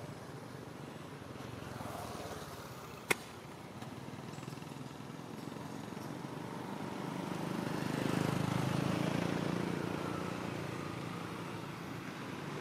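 A motor vehicle passing, swelling to its loudest about eight seconds in and then fading, over a steady background hiss; a single sharp click about three seconds in.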